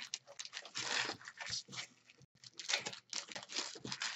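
Trading-card pack wrapper being torn open and crinkled by hand, an irregular run of short crackling and tearing sounds.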